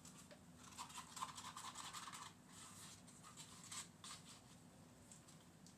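Faint rapid scratching lasting about a second and a half, starting near a second in, then a few light ticks; otherwise near silence.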